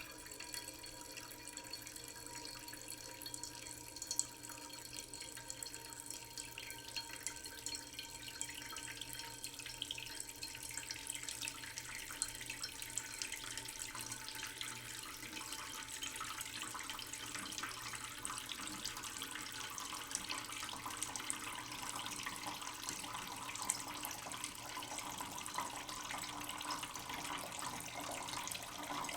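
Water from a tap running slowly into a cooking pot in a sink, splashing and trickling steadily as the pot fills.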